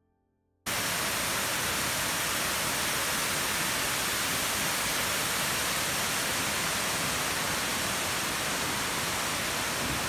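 Water pouring over a low concrete weir into a stream: a steady, even rushing that starts abruptly just under a second in.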